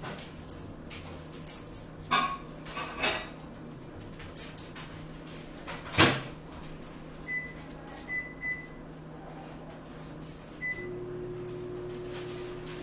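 A microwave oven being used: door clicks and knocks, the loudest a sharp latch click about halfway through, then a few short keypad beeps, and near the end the oven starts running with a steady hum.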